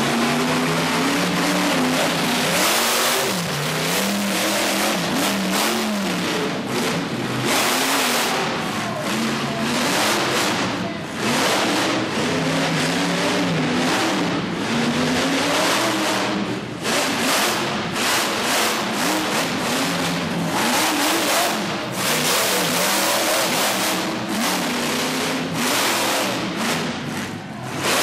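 Monster truck engine revving hard, its pitch climbing and falling again and again, with repeated loud surges of roaring noise.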